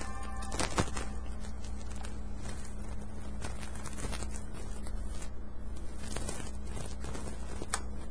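Irregular small clicks, taps and scrapes of fingers handling parts inside an open laptop while working a component into place, over a steady low hum.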